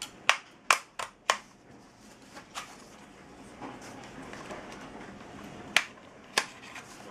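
Sharp finger snaps, four in quick succession, then a few more spaced out, made to set off a sound-activated toy. A fainter, steadier sound runs between the later snaps.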